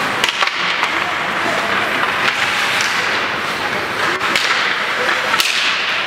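Ice hockey play in a rink: a steady noisy hiss of the game, with several sharp cracks of sticks striking the puck.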